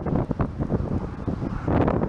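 Strong gusty wind buffeting the microphone: a heavy, irregular low rumble that swells and dips.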